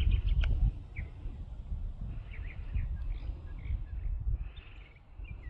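Small birds chirping outdoors in short, quick chirps, most in the first second and again a little past midway, over a low rumble that fades after the first second.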